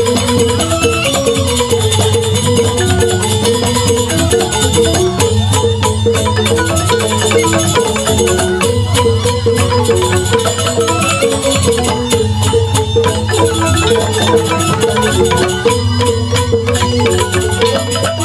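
Balinese joged bumbung gamelan playing an instrumental tabuh petegak: bamboo grantang xylophones ring out fast interlocking figures over kendang drums, with suling flutes. The music runs at a steady level with no break.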